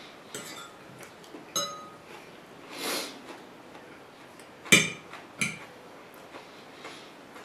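Metal fork clinking and scraping against a ceramic plate as salad is speared: a handful of sharp clinks with a short ring, the loudest a little past the middle. A brief soft hiss comes about three seconds in.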